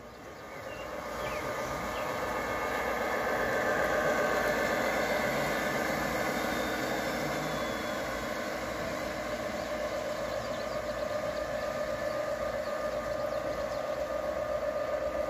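G-scale model diesel locomotives pulling freight cars along garden railway track: a steady mechanical hum with a rattling rumble of motors and wheels, building over the first few seconds and getting louder again near the end as a locomotive approaches.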